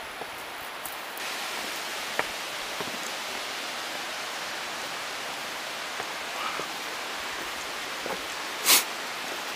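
Steady rushing of a waterfall, an even hiss of falling water. A few small clicks and, near the end, one short, louder burst of noise.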